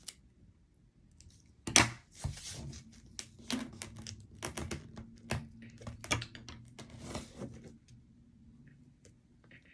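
Packaging being handled and pulled open: a sharp snap about two seconds in, then about six seconds of crinkling, tearing and clicking that stops near the end.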